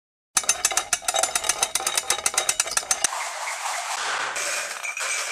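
Intro sound effect: a fast, even run of sharp clicks, about nine a second, for close to three seconds, then a steady hiss.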